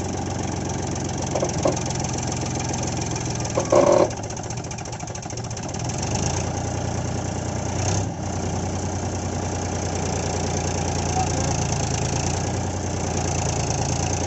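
Powertrac Euro Plus tractor's diesel engine running steadily while the tractor sits stuck in deep mud. Its low note grows heavier about six seconds in. A brief louder, higher-pitched sound cuts in at about four seconds.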